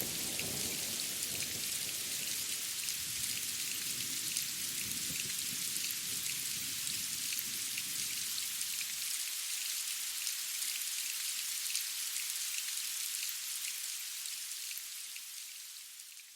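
Steady rain: a dense hiss of fine drop ticks. A low thunder rumble under it stops abruptly about halfway through. The rain then fades out near the end.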